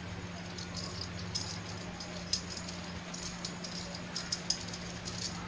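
Scattered light clicks and rattles of small metal and plastic parts of a scissor-arm microphone stand being handled and fitted together, over a steady low hum.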